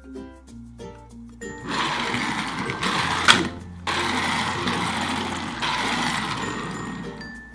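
Light background music with plucked notes and a steady bass line. About a second and a half in, a loud rough whirring noise comes over it for roughly six seconds, broken briefly near the middle, with one sharp click just before the break.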